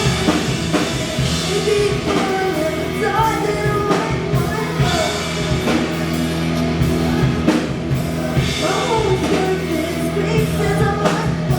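Rock music with a singer's voice over a drum kit and steady bass notes.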